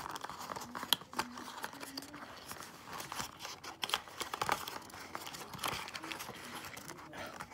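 Small clicks and rustling scrapes of fingers prying rune stones out of a wooden presentation tray, where the stones are held down by glue dots.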